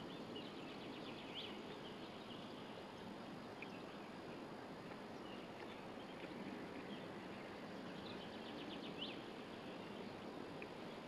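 Faint outdoor ambience of small birds chirping and trilling now and then, with a quick run of rising notes near the end, over a steady low background rumble.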